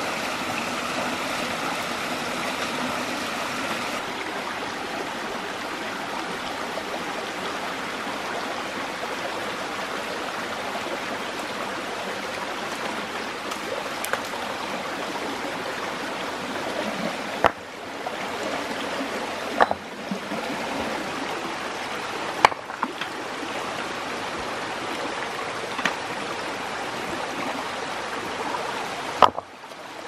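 Steady rush of water in a shallow rocky stream with a small waterfall. A few sharp knocks stand out in the second half.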